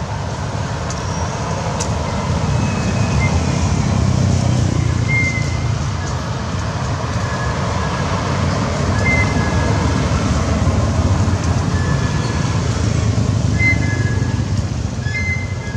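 Low rumble of road traffic, swelling and fading twice as vehicles pass, with a few short high chirps over it.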